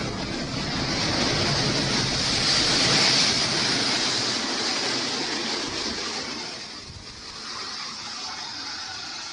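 Strong wind blowing in a gust: a rush of noise that builds to its loudest about three seconds in and eases off around seven seconds.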